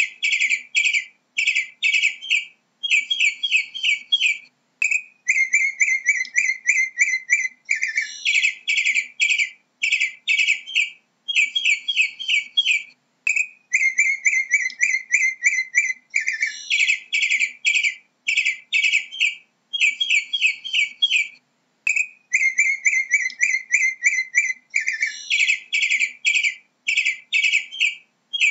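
Northern mockingbird singing: short phrases of rapid chirps, each phrase repeated several times before the next, with brief gaps between them.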